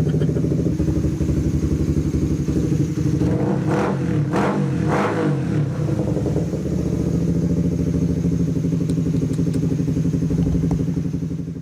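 Motorcycle engine running steadily, blipped three times in quick succession about four to five seconds in, then cutting off suddenly.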